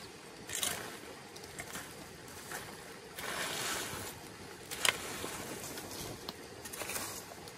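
Dry leaves and bamboo debris rustling as they are gathered and handled, with a longer stretch of rustling about three seconds in and a sharp snap about five seconds in.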